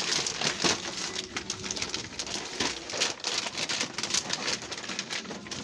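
Gift wrapping paper being torn and crinkled off a large box, a quick irregular run of rips and rustles.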